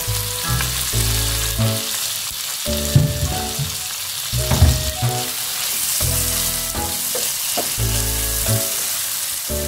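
Shallots, garlic and galangal sizzling in hot oil in a frying pan as sliced tomatoes and chillies are tipped in and stirred, with two sharp knocks about three and four and a half seconds in. Soft background music plays underneath.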